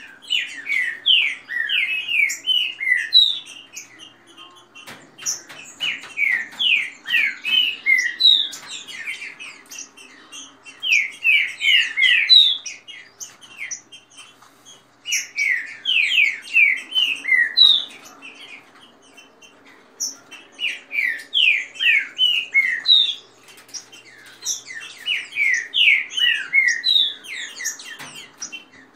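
Caged green-winged saltators (trinca-ferro) singing their fast song: phrases of quick, downward-slurred whistled notes, one every few seconds with short pauses between.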